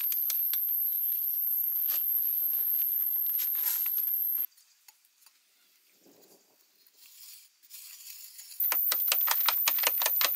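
Machete blade chopping and scraping into hard-packed clay soil in quick, clicking strokes over a steady high-pitched whine. Both drop away a little before halfway, and the chopping comes back faster and denser about two-thirds of the way in.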